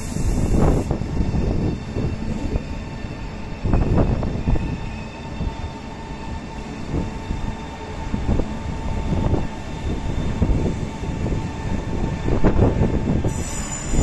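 Renfe variable-gauge electric multiple unit (series 120/121 family) rolling past, a continuous low rumble from the wheels and running gear with uneven heavier surges. A faint steady electric traction whine runs under it in the middle stretch.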